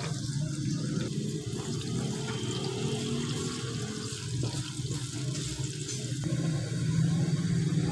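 Sliced onions sizzling in hot oil in an aluminium kadai, a steady hiss, with the wooden spatula scraping and knocking the pan as they are stirred. A steady low hum runs underneath.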